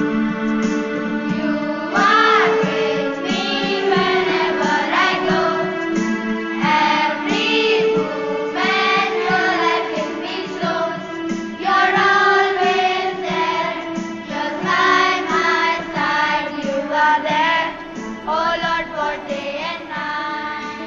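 Children singing a prayer song over a steady instrumental accompaniment.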